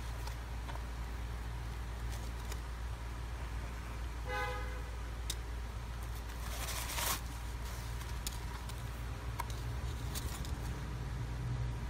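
Steady low hum with handling noise from a knit sneaker and its paper insert: a few light clicks and a short rustle about seven seconds in. A brief horn-like toot sounds about four seconds in.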